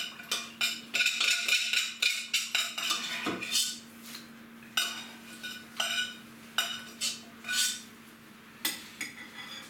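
Metal spoon stirring a steel saucepan, clinking and scraping against its sides: a quick run of clinks in the first few seconds, then single clinks about once a second. A steady low hum runs underneath.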